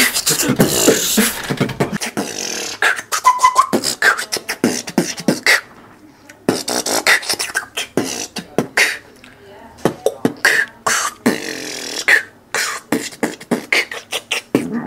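Beatboxing: a voice making a run of sharp vocal-percussion clicks and pops in a loose rhythm, with a short break about six seconds in.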